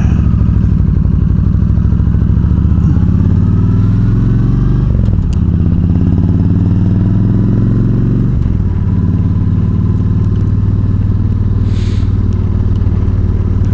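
Yamaha V-Star 1300's V-twin engine pulling along the road, its pitch climbing as it speeds up, with two breaks about five and eight and a half seconds in that sound like gear changes, then running steady.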